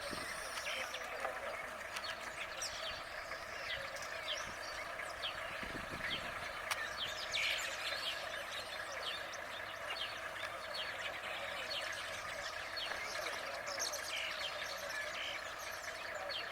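Wild birds chirping and calling in a dense, continuous chorus, many short quick calls over a steady background of calls.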